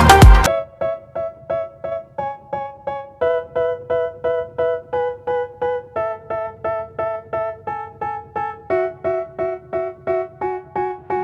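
Background music: a keyboard plays short, evenly spaced notes, about four a second, in a pattern that moves to new pitches every couple of seconds. It follows a loud dance track that cuts off about half a second in.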